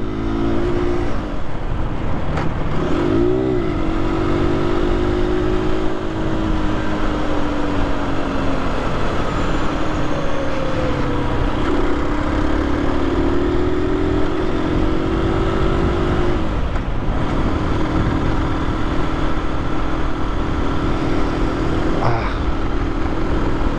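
Aprilia RS 125's single-cylinder four-stroke engine under way, its pitch rising and falling as the rider accelerates and eases off, over steady wind noise.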